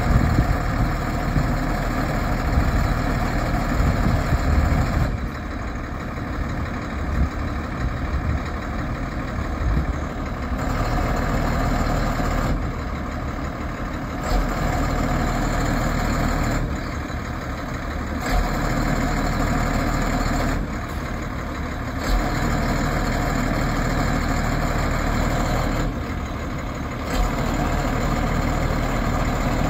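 1992 Ford F700 bucket truck engine running steadily while it powers the hydraulic aerial boom, which is being swung and raised. The engine sound steps louder and quieter every few seconds as the boom is worked.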